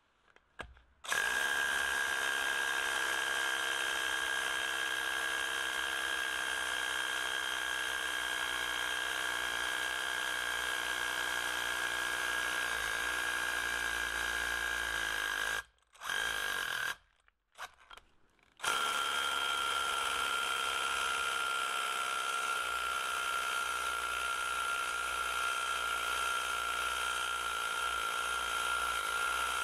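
Rebuilt hammer drill with a Bosch brushless motor drilling into a concrete slab: a steady high whine that starts about a second in. It stops for a few seconds midway with one brief start-stop, then runs again at a slightly lower pitch.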